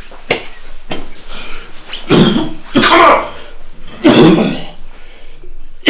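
A man coughing harshly in several loud bursts, the strongest at about two, three and four seconds in.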